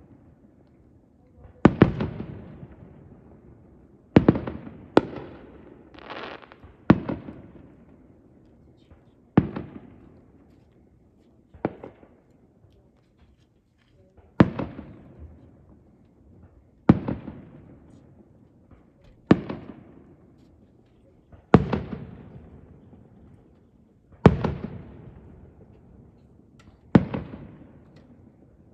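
Aerial fireworks shells bursting, about a dozen sharp bangs spaced two to three seconds apart, each trailing off in a rumbling echo.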